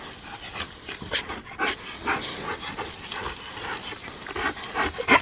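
A German Shepherd panting hard after running, a quick run of short breaths about three a second.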